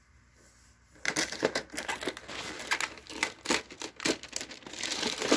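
Packaging around a set of cookie cutters crinkling and tearing as it is handled and pulled open by hand. It starts about a second in and goes on as a dense, irregular crackle.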